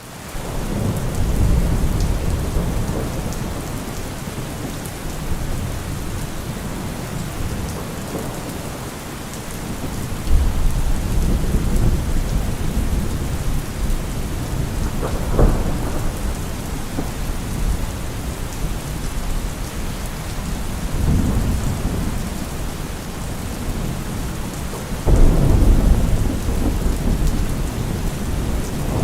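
Steady rain with repeated rolls of thunder. The sound fades in at the start, and low rumbles swell up several times, most sharply about ten seconds in and again near the end.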